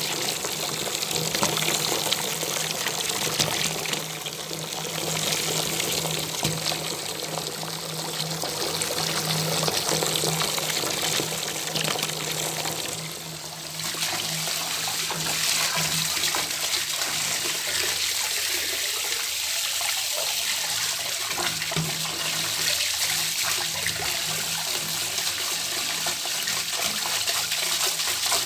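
Water from an open tap running into a bathtub, steady and continuous, briefly quieter a little before halfway. A faint low hum sits underneath for the first half.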